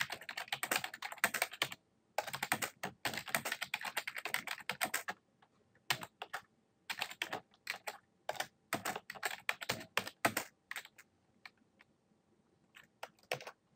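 Typing on a computer keyboard: fast runs of key clicks for about five seconds with a short break about two seconds in, then shorter groups of keystrokes, and a pause before a few last keystrokes near the end.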